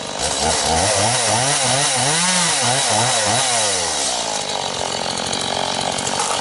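Chainsaw engine revved up and down about half a dozen times in quick succession, then running on steadily, as fallen trees are cut off a forest trail.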